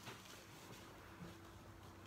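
Near silence: room tone, with a faint click at the start and a faint steady hum coming in about halfway through.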